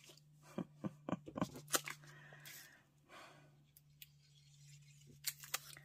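Paper and die-cut lace paper strips being handled and laid on a wooden worktable: soft rustles and a few light taps, with a cluster of taps near the end. A faint steady low hum runs underneath.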